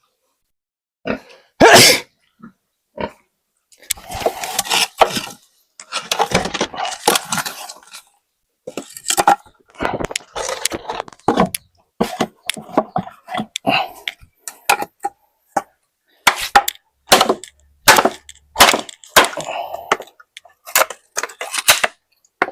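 Irregular knocks and clatters mixed with short scraping, rustling bursts, coming in uneven runs with brief gaps, the loudest a sharp knock about two seconds in.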